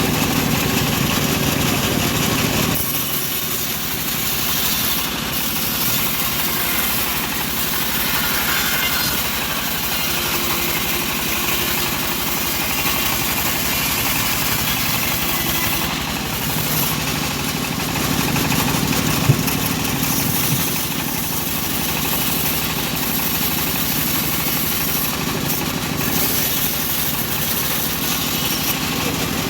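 Engine of a homemade bandsaw sawmill running steadily while sawing a teak log; the sound changes about three seconds in, as the load shifts.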